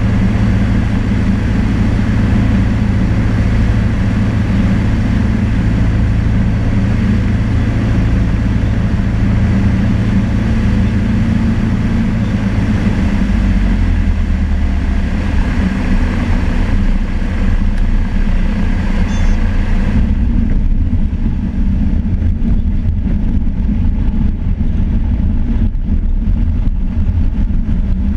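Cessna 152's four-cylinder Lycoming O-235 engine and propeller, heard from inside the cabin on a landing approach. About halfway through the engine note steps down as power comes back toward idle. About two-thirds of the way in the rushing air hiss falls away and scattered knocks follow as the plane settles onto the grass runway.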